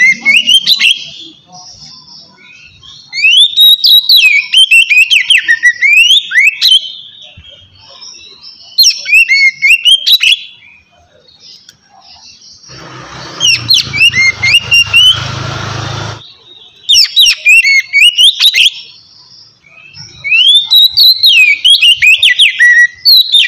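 Oriental magpie-robin singing loud, clear phrases of quick sliding whistles and chattering notes, in bursts of one to a few seconds with short pauses between. For about three seconds near the middle, a rushing noise with a low rumble runs under the song.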